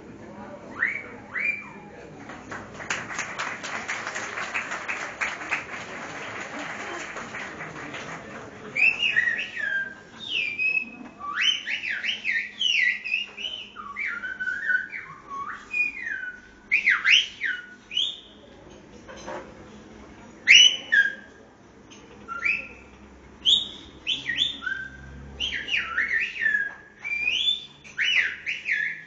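Silbo Gomero, the whistled language of La Gomera: a whistler sends out rapid strings of piercing whistled glides, sharply rising and falling, in short phrases with brief pauses between them. About three seconds in, several seconds of dense crackling noise cover the whistling.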